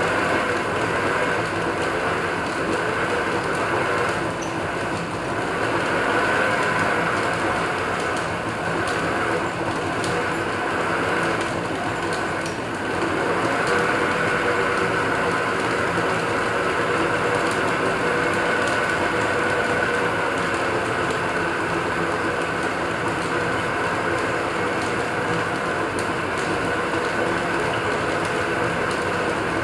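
Small metal lathe running steadily under power, its chuck spinning and its drive giving a steady whine.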